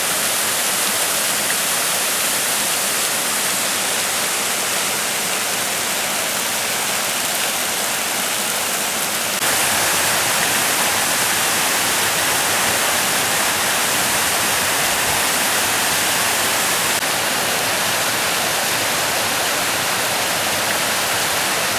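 Water rushing down a partly frozen waterfall, a steady even hiss that gets a little louder about nine and a half seconds in.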